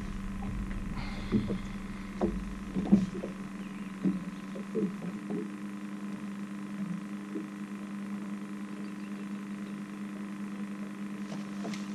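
Boat motor humming steadily while trolling. Several short knocks and clunks in the first five seconds come from the fish and tackle being handled.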